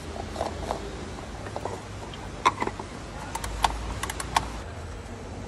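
Scattered light clicks and taps of hand tools and parts being handled, irregular and sharpest about two and a half, three and a half and four and a half seconds in, over a low steady hum.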